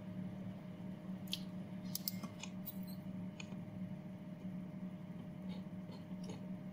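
Scattered sharp clicks of a computer mouse and its scroll wheel: a quick run of them between about one and three and a half seconds in, and a few more near the end. Under them runs a faint, steady low hum.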